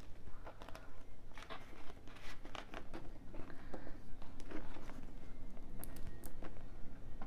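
Paper banknotes and clear plastic binder pouches rustling and crinkling as cash is handled and pages are turned, with scattered light clicks and taps throughout.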